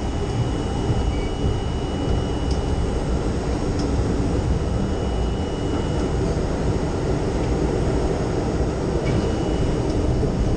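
R32 subway train running along the track: a steady rumble of wheels and motors, heard from inside the front car, with a faint thin high tone that drops out for a few seconds past the middle.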